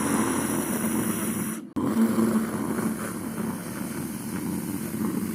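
A man imitating falling rain with his mouth: a continuous hissing, rumbling vocal noise with a steady hum underneath. It breaks off for a moment about two seconds in, then carries on.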